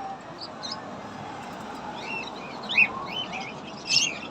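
Caged small birds chirping, many short calls overlapping and growing busier about halfway through, with two louder chirps near the end.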